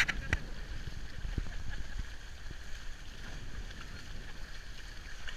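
Horses wading and splashing through shallow marsh water, over a steady rumble of wind on the microphone. A couple of sharp knocks right at the start.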